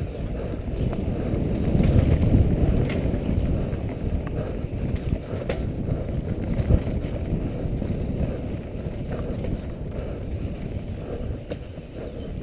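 Mountain bike descending a dirt forest trail at speed: a steady low rumble of tyres on dirt and wind buffeting the helmet-mounted microphone, with a few sharp knocks and rattles from the bike over bumps.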